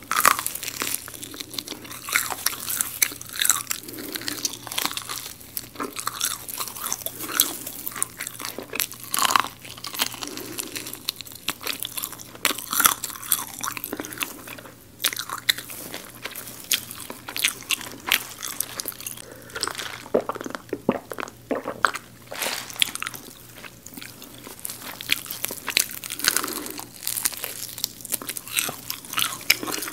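A person biting into and chewing crispy garlic fried chicken, the coating giving a rapid, irregular stream of sharp crunches.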